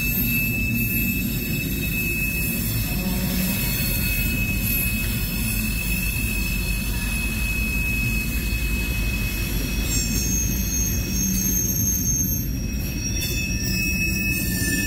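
Freight train cars, boxcars and covered hoppers, rolling past on the rails with a steady low rumble and a thin, steady high-pitched wheel squeal; a few more high squealing tones join about ten seconds in.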